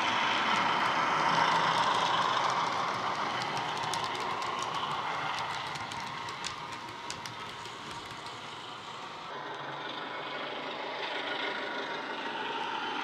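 Class 73 electro-diesel locomotive sound from a Legomanbiffo DCC sound decoder, playing through a model locomotive's small on-board speaker. It is loudest as the model passes and fades as it runs away. Sharp clicks come from the wagon wheels rolling over the track partway through.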